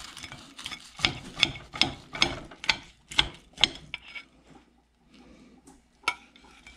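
A knife sawing through the crisp panko-breaded crust of a fried ruffed grouse cordon bleu, in quick rasping strokes about two or three a second that stop after about four seconds. There is a single sharp click near the end.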